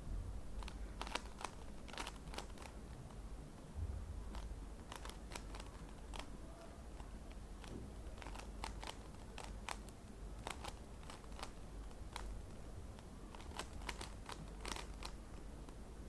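A 3x3 Rubik's cube's plastic layers being twisted by hand: irregular runs of sharp clicks, often several a second.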